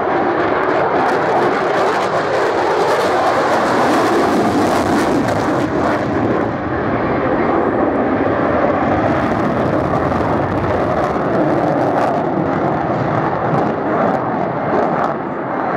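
Lockheed Martin F-22 Raptor jet fighter flying a display pass and banked turn, its twin Pratt & Whitney F119 turbofans making a loud, steady rush of jet noise.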